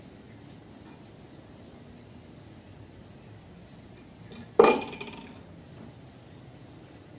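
A single sharp clink of a drinking glass being knocked or set down, about four and a half seconds in, ringing briefly as it fades.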